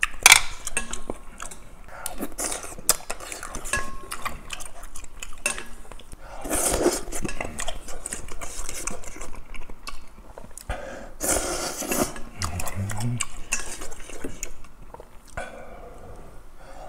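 Chopsticks clinking and scraping against a stainless steel bowl as noodle soup is stirred and picked up, with several noisy slurps of the noodles.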